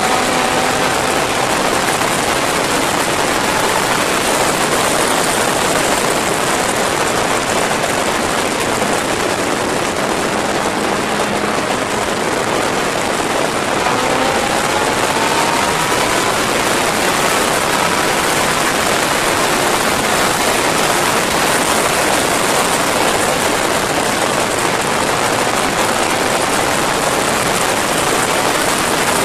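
Steady wind rush over a motorcycle-mounted camera at high road speed, with the Yamaha motorcycle's engine faintly audible underneath. About halfway through, the engine note rises in pitch as the bike accelerates.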